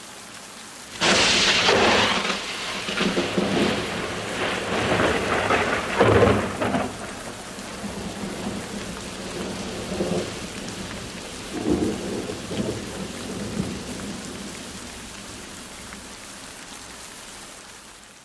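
Thunderstorm: steady rain with a sudden crackling thunderclap about a second in, then rumbling peals near six and twelve seconds in, the thunder slowly dying away.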